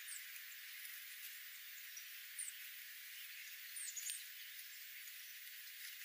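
Faint, short, high chip notes from small ground-feeding songbirds over a steady hiss: one about two and a half seconds in and a quick pair near four seconds.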